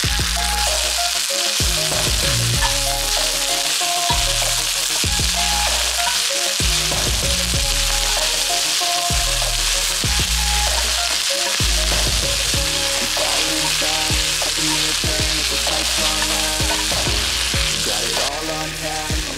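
Onions sizzling as they fry in hot oil in a cast-iron pan, a steady hiss.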